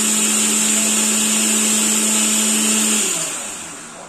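Electric mixer grinder running steadily, its steel jar grinding mint leaves, sugar and water into a liquid. About three seconds in the motor cuts out and winds down, its hum falling in pitch as it fades.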